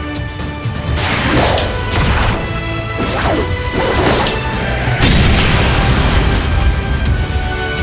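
Dragon Ball–style anime fight sound effects: about five heavy hits with whooshing tails, roughly a second apart, over background music.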